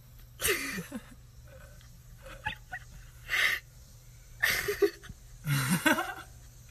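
People laughing in several short, breathy, wheezing bursts.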